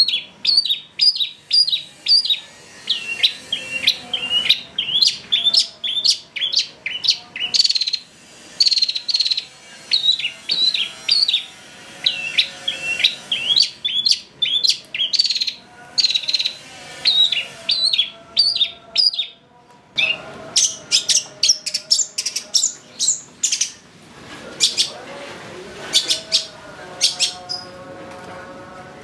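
Long-tailed shrike (cendet) in full song: a fast, continuous run of short sharp chirps and harsh notes, several a second, with mimicked calls mixed in.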